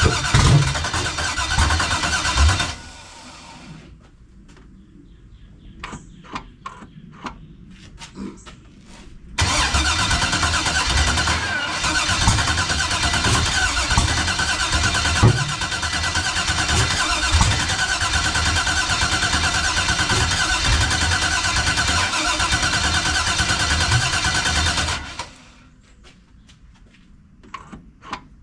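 LS V8 engine being cranked by its starter without catching: a short crank of a few seconds, a pause with a few light clicks, then a long crank of about fifteen seconds that stops without the engine running. The sound of a no-start, with the engine acting as if it wants to fire but never taking off.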